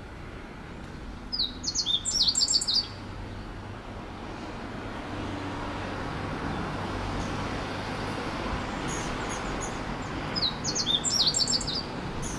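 Songbird singing a quick, high phrase of several rapid notes, twice: about a second in and again near the end. The phrase is one that a listener hears as 「なんかええ事あるかなぁ」 ('I wonder if something good will happen') in Kansai intonation. Steady background noise runs underneath.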